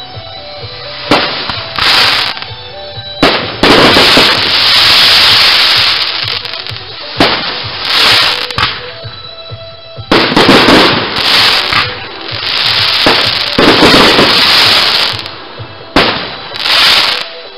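Fireworks going off in quick succession: sharp bangs of bursting shells about every one to two seconds, with louder stretches of crackling and hissing between them.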